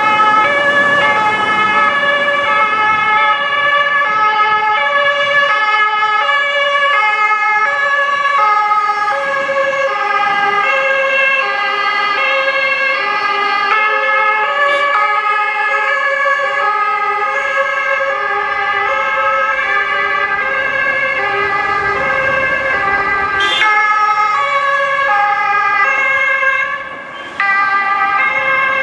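Several German police two-tone sirens (Martinshorn) sounding at once, each switching between a high and a low note, their patterns overlapping out of step. The sound drops off briefly near the end.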